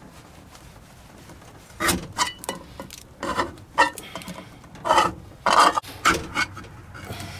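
Benchmade folding knife blade being worked through the tin lid of a can of salmon, used in place of a can opener. It makes a dozen or so short, irregular rasping scrapes of steel on tin, starting about two seconds in.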